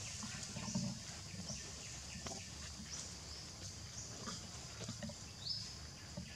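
Outdoor ambience: short, high, rising chirps about once a second over a steady high hiss, with a low rumble underneath.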